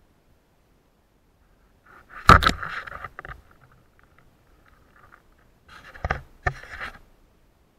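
A wooden stick jabbed into shallow reedy water and drawn back out with a crayfish pinned in its split end: a sudden loud splash and scrape about two seconds in, then a second burst of knocks and rustling around six seconds as it is lifted clear.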